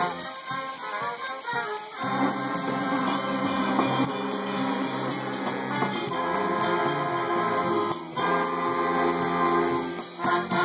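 Swing big band of saxophones, trumpets, trombones and electric guitar playing long held brass-and-sax chords at the close of a tune. There is a short break about eight seconds in, then a last held chord that is cut off, and one short final hit near the end.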